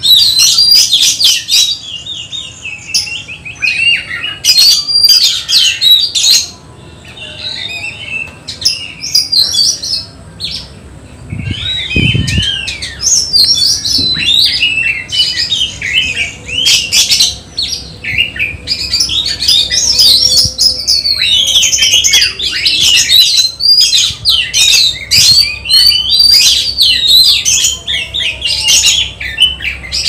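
Oriental magpie-robin (kacer) singing loudly in a long, fast, varied run of whistles, trills and harsh notes, with a short quieter spell after about six seconds. A brief dull knock sounds near the middle.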